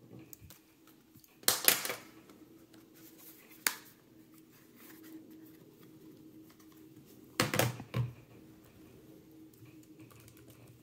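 Handling clatter of a GPD Pocket 3 mini laptop: sharp plastic clicks and clacks as its convertible screen is swung round on the hinge and the machine is handled and set down, with keyboard-like tapping. Two loud bursts of clacking, about a second and a half in and again about seven and a half seconds in, with a single click between.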